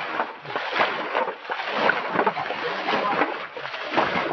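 Muddy river water being scooped with metal pans and flung out, irregular repeated splashing and sloshing.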